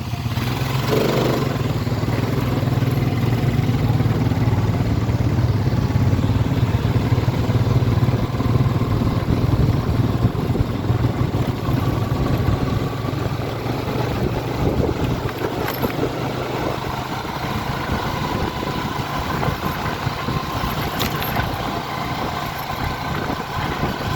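ATV engine running steadily, a little louder in the first half and easing off in the second half.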